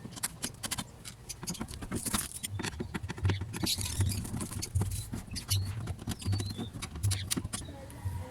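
Irregular small clicks, scrapes and rattles of metal and plastic parts being handled as a car door lock actuator is worked loose and pulled out of the door, over a low hum that comes and goes from a few seconds in.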